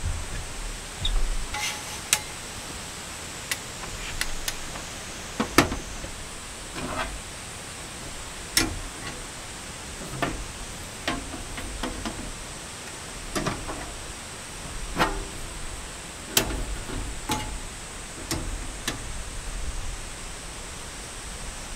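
Irregular metallic clicks and knocks as black metal panels and mesh grill inserts of a cube camping table set are handled and set into its frame, over a steady hiss of wind and rain.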